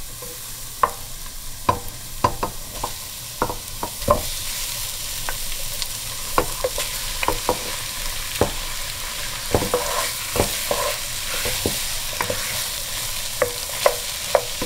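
Raw chicken pieces pushed with a wooden spoon into a pot of diced onion frying in a little oil, sizzling steadily, and the sizzle grows after about three seconds. Frequent sharp knocks of the spoon against the pot and the glass plate.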